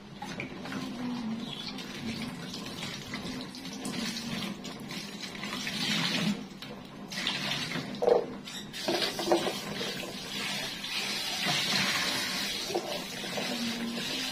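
Kitchen tap running into a bowl in the sink as something is rinsed by hand, the splashing rising and falling. A sharp knock or two of the bowl about eight seconds in.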